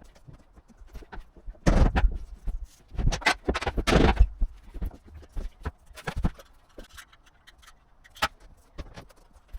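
Laminate floorboards being handled and fitted: irregular knocks and scraping, with the busiest stretches about two and four seconds in.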